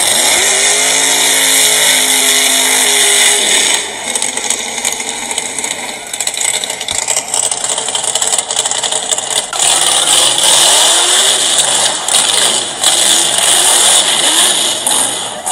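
Loud engine revving: held at steady revs for about three seconds near the start, then revved up and down repeatedly in the second half.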